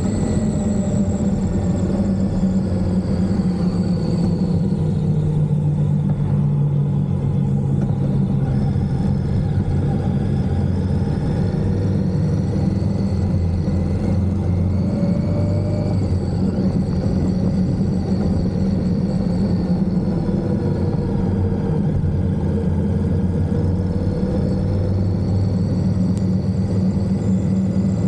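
Indian Scout motorcycle's V-twin engine running steadily while cruising, with small shifts in pitch as the throttle changes.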